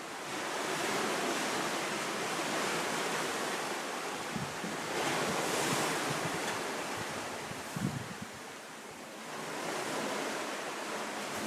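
Surf and wind: a steady rushing that swells and eases every few seconds, with a short bump about eight seconds in.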